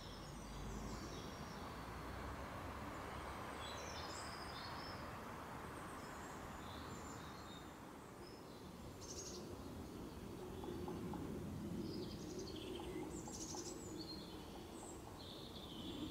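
Small birds chirping and trilling on and off over a steady low outdoor background hum.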